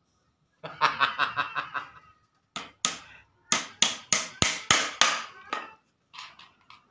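A man chuckles briefly, then taps about eight or nine times with a small hammer on the wooden frame of a small bird cage he is assembling. The taps are sharp, single knocks, some coming in quick succession.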